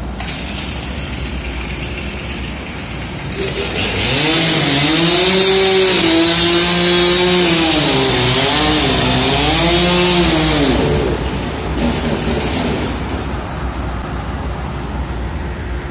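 Scragg mill's twin-spindle circular saws running, driven by one large electric sawing motor; from about 3.5 s to 11 s a log is sawn, with a loud whine whose pitch wavers and dips under the load of the cut, then the machine drops back to a steady running noise.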